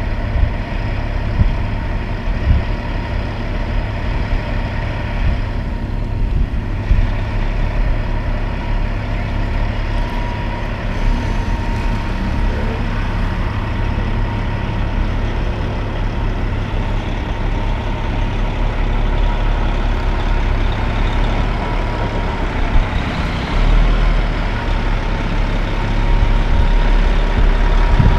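Western Star semi truck's diesel engine running under load as it pulls a lowbed trailer, getting louder near the end as the truck comes closer, with a steady high-pitched whine running alongside.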